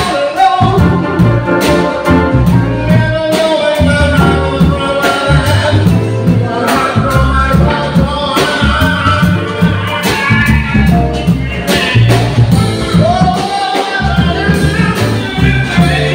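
A live jazz combo of grand piano, upright double bass and drum kit playing, with a male singer's voice over it through a microphone.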